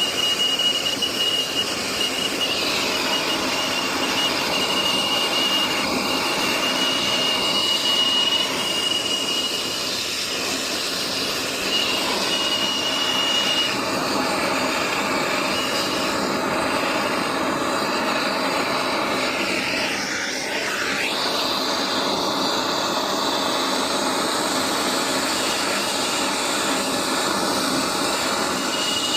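Plumber's soldering torch burning steadily with a hissing flame noise while a copper joint is heated. A thin high whistle runs through the first half.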